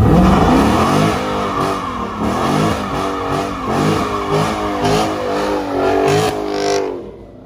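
High-performance V8 car engine revving hard, its pitch climbing and dropping again and again in quick succession, then cutting off sharply near the end.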